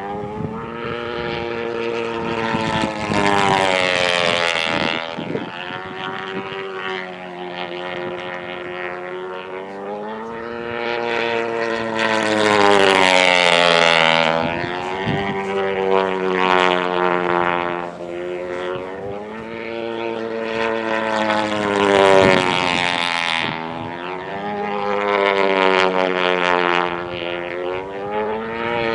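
YS 115 glow engine of an RC pylon-racing model plane at full throttle, rising in pitch and loudness as the plane approaches and dropping in pitch as it passes. This repeats about four times as the plane makes fast passes.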